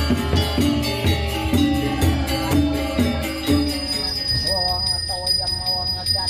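Rhythmic percussion music of struck, ringing pitched tones, which stops about four seconds in. A person's voice follows over a faint steady high whine.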